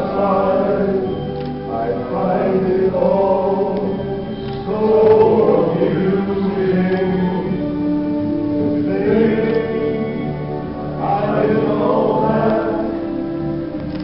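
A small men's vocal group of six singing together in harmony, with long held notes.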